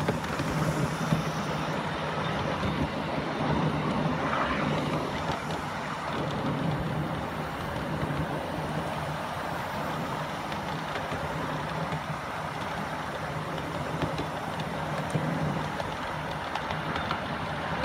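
A 7¼-inch gauge miniature railway train running along its track: a steady rumble from the ride-on cars' wheels on the rails, with occasional light clicks.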